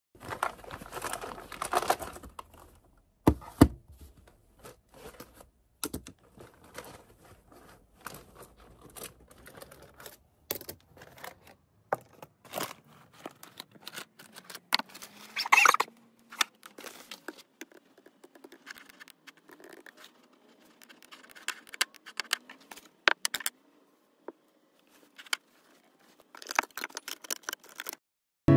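Close handling sounds at a desk: laptop keys clicking at first, then scattered clicks and rustles as a fabric pencil case and pens are handled, and paper rustling near the end.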